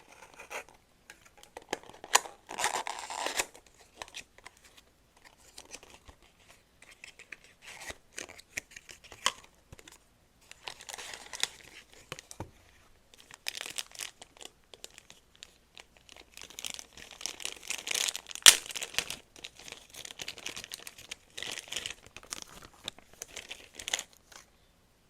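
A Sylvanian Families blind bag being torn open and its wrapping crinkled by hand, in irregular bursts with sharp clicks; the loudest click comes about eighteen seconds in.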